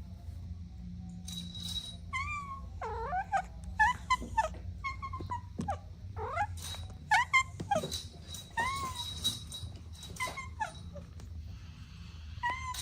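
Kittens mewing: a rapid string of short, high-pitched mews, some sliding up or down in pitch, starting about a second and a half in and loudest around the middle, over a low steady rumble.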